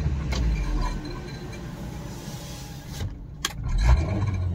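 Suzuki Baleno engine running at raised revs with the accelerator held, giving a low, steady sound that swells near the end, with a sharp click about three and a half seconds in. The unwanted noise is the exhaust silencer vibrating under the car, which the owner puts down to it having been struck on a potholed road.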